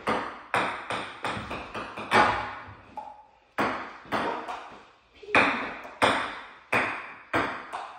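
Table tennis rally: a celluloid ping-pong ball clicking back and forth off paddles and the table, about three hits a second, with two short breaks.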